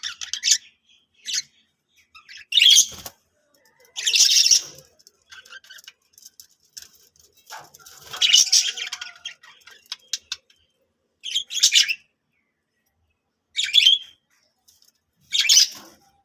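Pet budgerigar chirping and chattering in short, separate bursts, some brief and some lasting about a second, with pauses between them.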